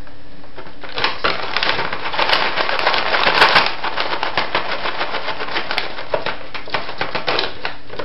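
A cat pawing and clawing at something on top of a refrigerator: a rapid, irregular crackle of clicks and scratches. It starts about a second in, is densest around the middle, and thins out near the end.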